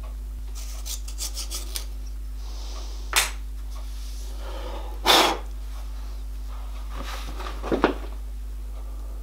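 Small steel workpieces and hand tools handled in a milling-machine vise: a quick run of light metal clicks, a sharp metallic knock about three seconds in, a louder clatter about five seconds in, and another short clatter near the end. A steady low hum runs underneath.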